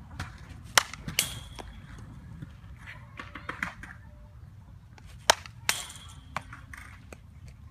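Softball bat hitting pitched balls twice, about four and a half seconds apart. Each hit is a sharp crack with a short, high-pitched ring.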